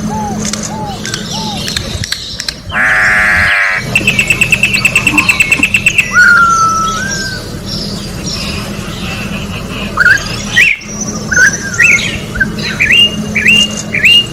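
Corrupião (campo troupial) singing: clear whistled notes that slide up and down. About three seconds in there is a harsh buzzy note, then a rapid run of short high notes at about ten a second. A steady low hum runs underneath.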